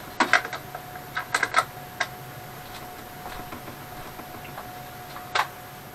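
Small metal parts clicking and clinking, as bolts and washers are handled on a metal lathe chip pan: quick clusters of clicks in the first two seconds and one more near the end, over a faint steady hum.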